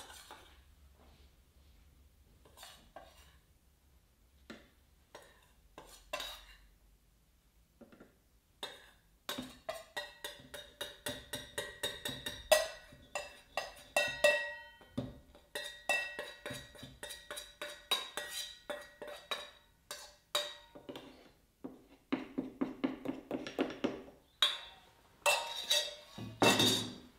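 Stainless steel mixing bowl being scraped with a spoon and then tapped and knocked over a food processor jug as sugar is emptied out of it: a few soft scrapes and clicks at first, then rapid ringing metallic taps about three or four a second, ending in a louder clatter of metal bowls.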